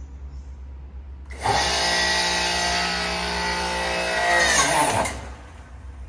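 The electric motor and hydraulic pump of a Vogel Tool & Die CSP25SA press's power unit starting up about a second and a half in and running for about three and a half seconds, a steady whine whose pitch drops slightly as it runs. It grows louder just before it cuts off.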